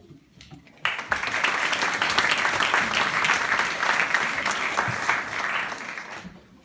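Audience applauding in a hall: the clapping breaks out suddenly about a second in and dies away near the end.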